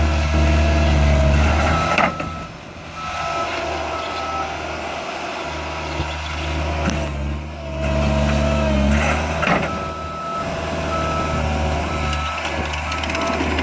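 Skid steer loader engine running, loud at first and easing off about two seconds in, with the machine's reverse alarm beeping about twice a second while it backs up. There are a few sharp knocks along the way.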